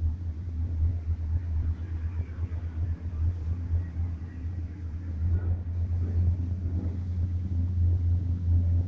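Low, steady rumble inside a moving cable-car cabin, growing somewhat louder about halfway through.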